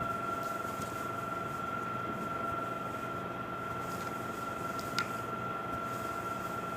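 Steady background hum with a thin, constant high whine, and a single short click about five seconds in.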